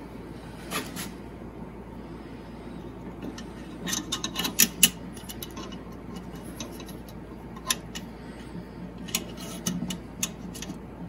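Small metal clicks and taps as the brass spider of a model turntable, a ring of small HO-scale wheels on axles, is handled and fitted over the bridge's centre pin. Scattered single clicks, with a quick cluster of louder ones about four to five seconds in.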